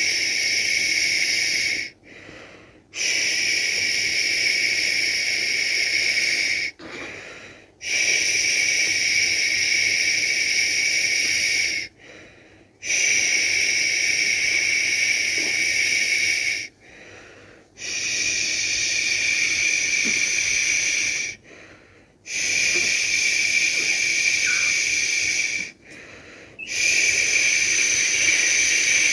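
A person making long, steady "shhh" shushing sounds to lull a baby to sleep, each shush lasting about four seconds with a short pause for breath between them, about seven in a row.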